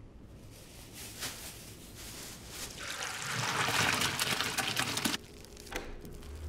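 Cooked macaroni and its hot cooking water poured out of a pot, a steady splashing rush that builds and then cuts off suddenly about five seconds in.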